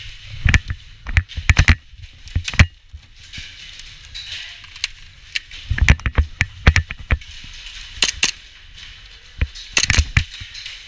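Bursts of sharp clicks and knocks from airsoft gunfire and BBs striking plywood walls, mixed with thuds of movement. The bursts come in four clusters: near the start, around six to seven seconds, around eight seconds and near the end.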